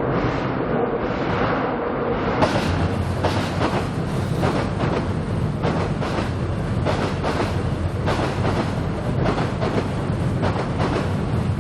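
Seoul Subway Line 7 train running across Cheongdam Bridge, heard from beneath: a steady rumble that, about two seconds in, turns into a dense, irregular clatter of wheels over the track.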